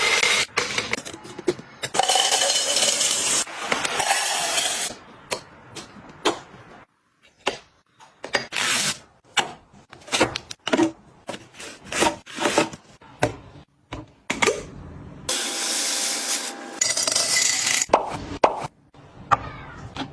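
Objects being handled and packed by hand: several rustling, scraping bursts of a second or two each, mixed with many light clicks and taps.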